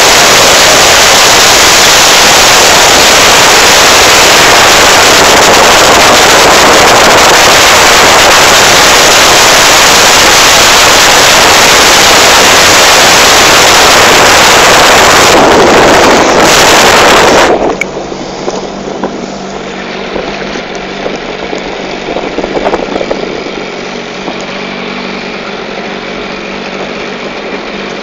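Jet ski running fast, its engine almost buried under a loud rush of wind on the microphone. About two-thirds of the way through the sound cuts abruptly to a much quieter, steady engine running at low speed or idle.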